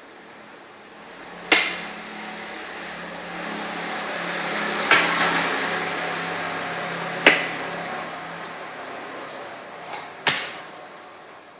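Four sharp clacks a few seconds apart from play at a makruk board, over a background hiss that swells and fades in the middle.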